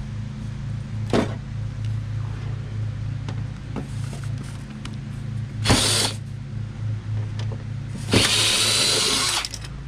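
Cordless drill run in short bursts to back screws out of a flat-screen TV's steel back panel. There is a brief run about six seconds in and a longer one of over a second near the end.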